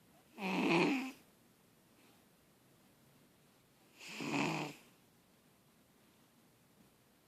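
A house cat snoring: two loud snores about three and a half seconds apart, each lasting just under a second.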